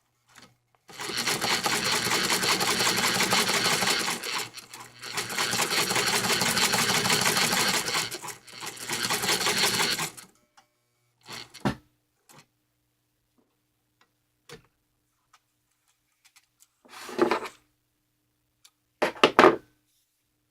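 1957 Toyota Marvel De Luxe sewing machine stitching through two folded layers of heavy vinyl, in three runs with short pauses, then stopping about ten seconds in. A few clicks and two brief louder handling sounds follow near the end.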